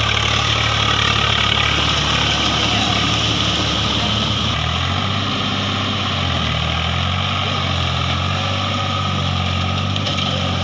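Swaraj 744 FE tractor's three-cylinder diesel engine running steadily as it pulls through deep mud, its engine speed shifting about five seconds in.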